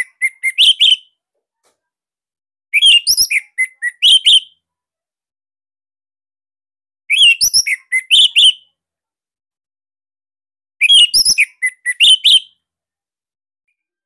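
Orange-headed thrush (anis merah) singing in full voice: loud, tight phrases of fast whistled notes, each about a second and a half long, repeated about every four seconds with silence between.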